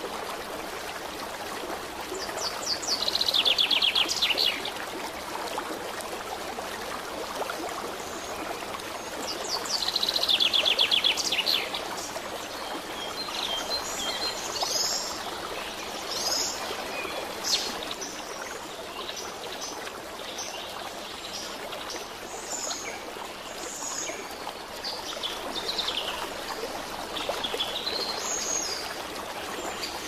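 Running stream with small songbirds chirping over it. Two loud, fast trills falling in pitch come about two seconds in and again about ten seconds in, followed by scattered high chirps.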